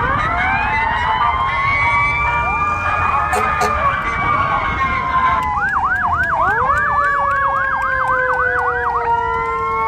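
Fire engine sirens sounding together: wailing tones rise at the start and then fall slowly. About halfway in, a fast yelp of roughly three to four sweeps a second joins them, and it gives way to steady wails near the end.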